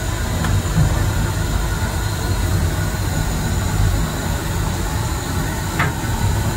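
Steam locomotive running, heard from inside the cab: a steady rumble and rattle of the engine and wheels, with a brief squeal near the end.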